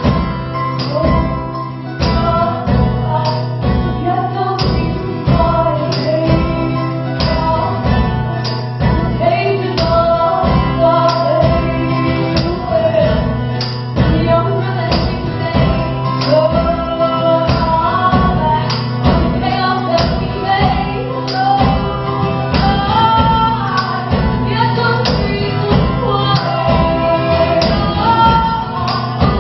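Live band music: women singing over a steady, evenly strummed rhythm, loud throughout.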